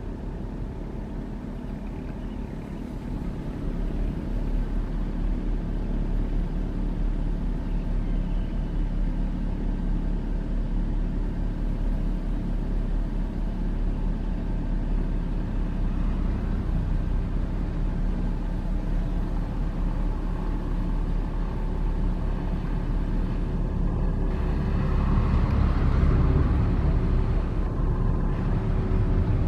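Heavy diesel construction machinery running with a steady low rumble, growing louder about four seconds in and again near the end.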